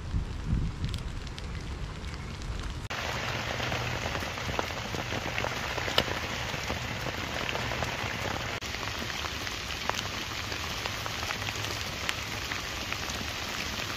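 Steady rain falling, with a sharp crackle of the campfire now and then. For the first few seconds there is a low rumble, then about three seconds in the rain comes in suddenly and fills the sound.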